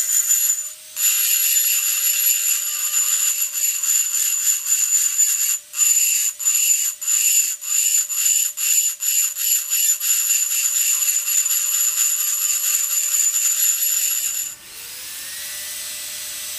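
High-speed rotary engraving handpiece grinding wet glass with a stone burr: a steady high-pitched whine over a constant motor hum. In the middle it breaks into short strokes two or three times a second, and about two seconds before the end the grinding stops, leaving a quieter hiss.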